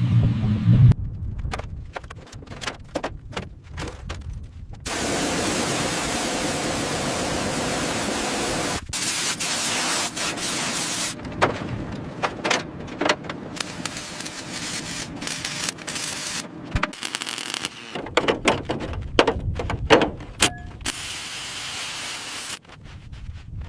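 Workshop noises of car restoration work: a run of sharp knocks and clanks, with a steady hiss starting about five seconds in and lasting about four seconds.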